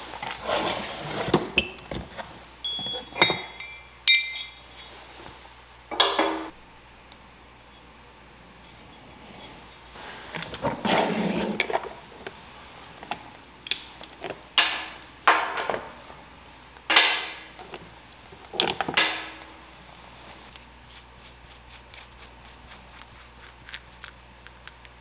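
Milwaukee Packout plastic tool-box drawer sliding open, then steel welding-table fixture pins clinking and knocking against each other and the drawer as they are picked up and handled. There is a run of small, light clicks near the end.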